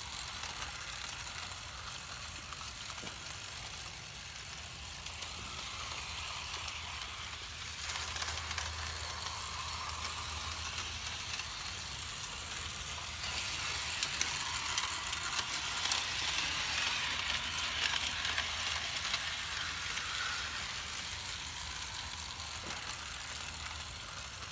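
Large-scale garden model train running on outdoor track: a steady low motor hum under a hiss of wheels on rail. It grows louder a little past halfway as the train passes close, then eases off.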